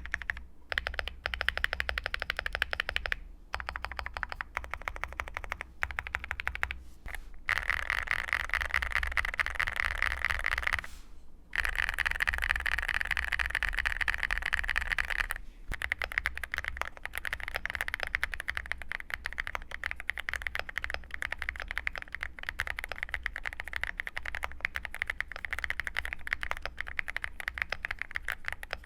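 Fast, continuous typing on a Varo V87A July full-aluminium custom mechanical keyboard fitted with linear purple switches, a dense run of keystrokes broken by short pauses about 3, 11 and 15 seconds in.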